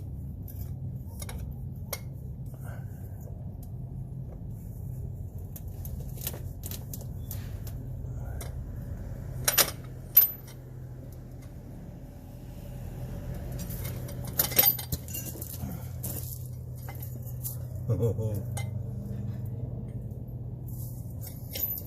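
Metal hand tools and truck parts clinking and knocking during work on the wheel assembly: scattered light clinks, with louder sharp knocks about ten seconds in and again around fourteen seconds, over a steady low hum.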